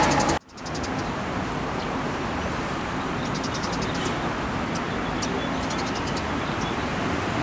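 A loud passing vehicle cuts off abruptly near the start, followed by steady road traffic noise at a toll gate.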